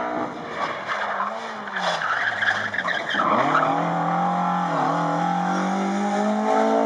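A Toyota Corolla AE86 rally car's engine drops its revs into a corner, with tyres squealing about two seconds in. The car then pulls away, its revs rising steadily under hard acceleration.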